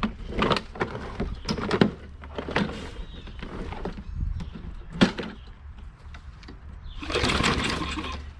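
Old walk-behind lawn mower engine with a bent crankshaft running with a low steady hum, broken by a series of sharp knocks and clatters and a louder rush of noise near the end, as its drive is tried without the shear pins in.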